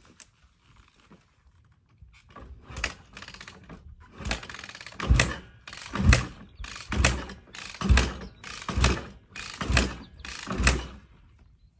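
Dirt bike being kick-started: the kick-starter stamped down about eight times, close to once a second, each stroke a thump as the engine is cranked over. The engine does not catch.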